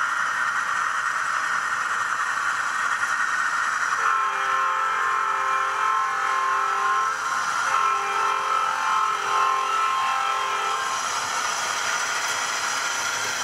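ESU LokSound decoder in an HO scale NR Class model locomotive playing a General Electric diesel-electric engine sound, steady throughout. From about four seconds in until about eleven seconds, a multi-note locomotive horn sounds in a series of blasts over the engine.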